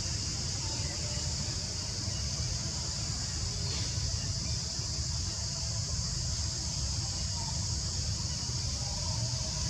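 Steady, high-pitched chorus of insects, with a constant low rumble underneath.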